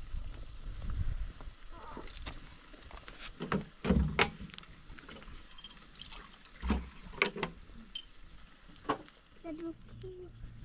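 Scattered knocks, clinks and thuds of cookware and containers being handled, the loudest about four seconds in.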